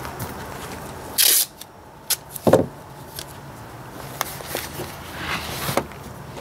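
A strip of masking tape ripped off the roll about a second in, then paper rustling, a dull thump and light taps as tape is pressed onto a paper template.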